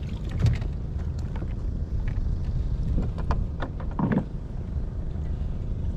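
Wind rumbling steadily on the microphone on open water, with a few light clicks and knocks from handling gear on the kayak; the sharpest knock comes about half a second in.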